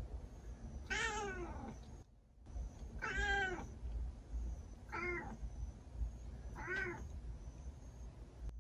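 Silver tabby cat meowing four times, each call rising then falling in pitch; the first two are drawn out and the last two are short.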